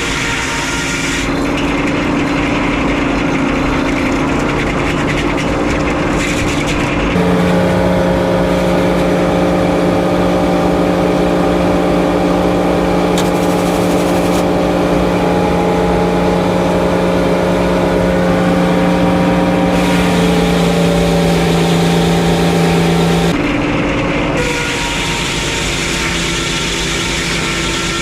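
Frick 01-C circular sawmill running steadily while sawing loblolly pine. About seven seconds in, a louder steady hum comes in and holds until about twenty-three seconds in, then drops back.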